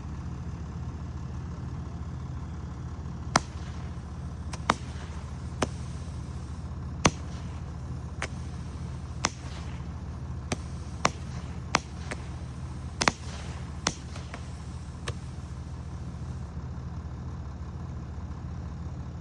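Small consumer fireworks cake (Fire Factory 'Can of Worms') firing: about a dozen sharp reports come at irregular intervals from a few seconds in until a few seconds past the middle. A steady low hum runs underneath.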